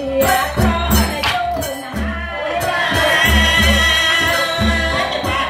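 Folk music accompanying the Surin Rueam Angre dance: a regular deep drum beat with bright jingling percussion strokes and a melody line that holds long notes in the second half.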